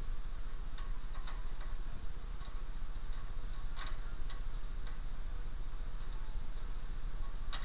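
Scattered light metallic clicks, a few at a time, from hand tools starting the nut on a car's lower ball joint, over a steady low hum.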